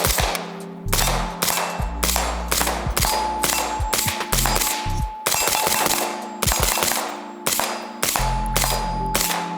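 Suppressed semi-automatic rifle fire from a PSA Sabre 5.56 AR-15 carbine with a Dead Air Sierra5 suppressor: a steady string of shots at about two a second.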